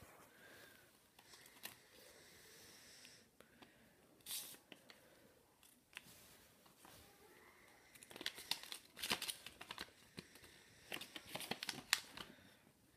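Sheets of hand-made paper rustling and crinkling as they are handled and unfolded, with a brief rustle about four seconds in and a dense run of crackles from about eight seconds in until near the end.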